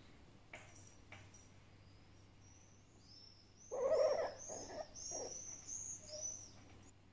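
A fennec fox making a run of short grumbling, whiny calls with high squeaky notes, starting about halfway through: an annoyed protest at being petted.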